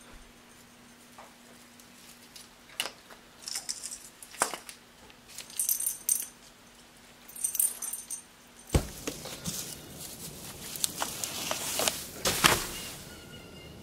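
Christmas tree ornaments clinking and jingling as they are pulled off a real tree, with the branches rustling. About nine seconds in comes a sharp knock, then a louder rustle of branches and a thud as the tree is thrown out onto snow.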